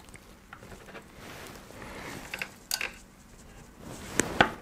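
Small clicks and scrapes of a CPU cooler's spring-steel retention clip being pressed down over the plastic lug of an AM4 mounting bracket, with two sharper clicks near the end as the clip latches into place.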